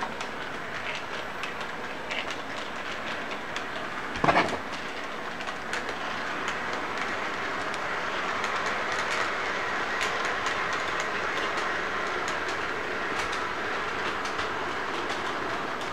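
Model intermodal train running on its track, wheels clicking over the rail joints, getting louder as it passes close by around the middle. A brief loud thump about four seconds in.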